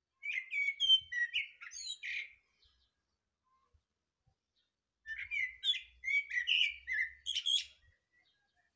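A thrush singing two phrases with a pause of nearly three seconds between them. Each phrase is a run of clear whistled notes mixed with high, squeaky twitters.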